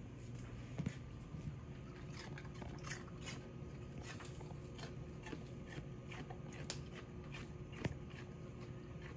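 Yellow Labrador chewing celery: scattered, irregular crisp crunches over a low steady hum.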